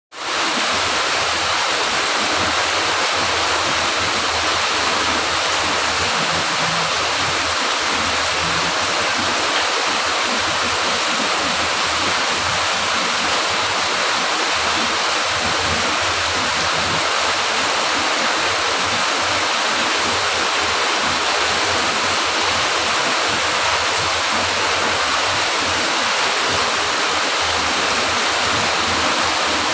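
Steady rain, an even hiss of falling water that fades in at the very start and then holds without change.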